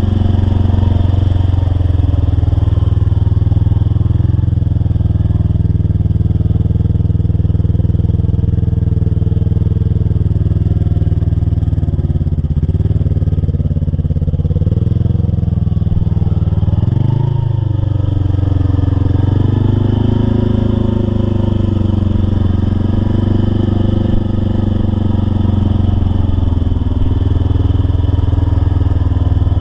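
Mud-bogging truck engine running hard at high revs, its pitch slowly rising and falling several times over a steady heavy low rumble.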